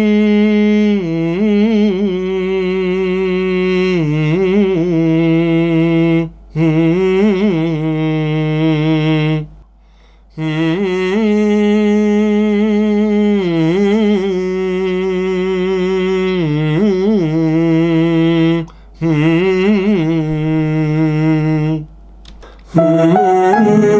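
A man humming a wordless melody into a studio microphone for an a cappella track: long held notes joined by wavering ornamental turns, with a few short breaks for breath.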